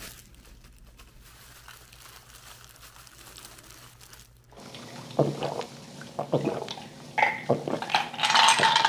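Faint handling sounds of raw fish being prepared by hand. From about halfway there are louder short wet sounds and wordless throaty exhales as two men gulp down drinks from glasses.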